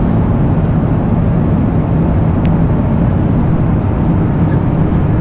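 Steady cabin noise inside a Boeing 777-200 airliner in cruise: the constant low rush of the engines and the airflow over the fuselage.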